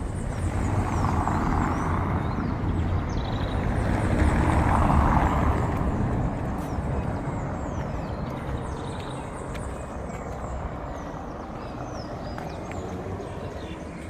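Road traffic passing on a city street: motor vehicle noise swells, is loudest about five seconds in, then slowly fades. Small birds chirp throughout.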